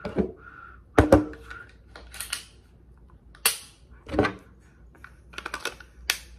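Glock 9mm pistol being handled to show it is clear: a string of sharp metal clicks and clacks from its slide and parts, the loudest a double clack about a second in, then single clicks spaced through the rest.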